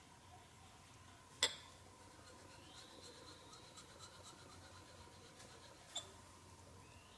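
Plane blade being worked on a natural whetstone: faint scratching of steel on stone, with two sharp clicks, the louder one about a second and a half in and another near six seconds.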